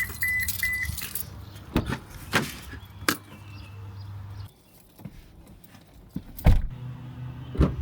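A car's warning chime gives a few short high beeps, followed by scattered clunks and knocks of things being handled around the car, and one heavy thump near the end, like a car door shutting.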